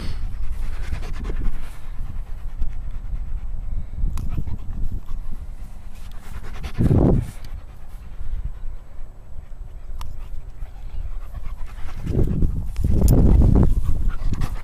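A dog panting with its tongue out, close by. A louder rumbling rush joins it near the end.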